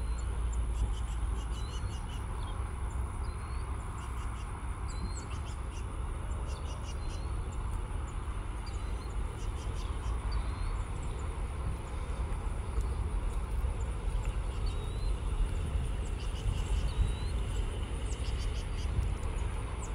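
A songbird repeating a short, high call every second or two, over a steady low rumble and a thin, steady high hiss.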